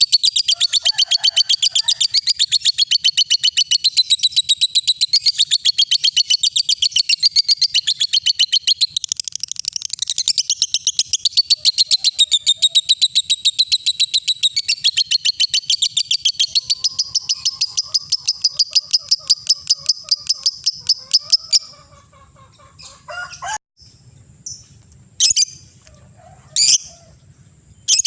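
Lovebird singing its long 'ngekek' chatter: a rapid, evenly pulsed high-pitched trill that runs unbroken for about twenty seconds and then stops, followed by a few single sharp calls.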